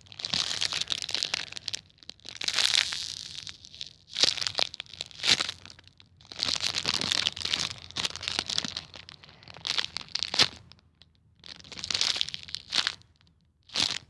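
Crinkling and rustling in about eight separate bursts of a second or two as a squishy foam toy is squeezed and handled, most likely with its plastic packaging.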